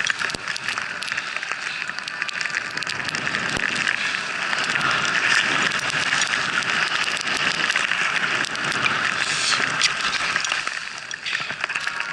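Skis rushing through deep fresh powder snow on a downhill run: a steady hiss with fine crackles that dips briefly near the end.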